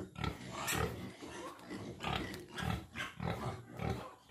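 Piglets grunting in a quick series of short grunts.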